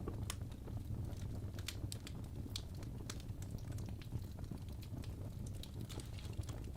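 Wood fire crackling in a fireplace, with irregular sharp pops and snaps over a steady low rumble of burning.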